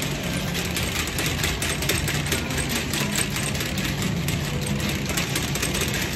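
Wire grocery shopping cart rattling steadily as it is pushed along: a very loud cart.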